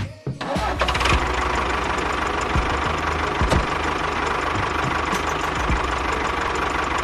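A small motor running steadily with a rapid rattle, starting up about half a second in.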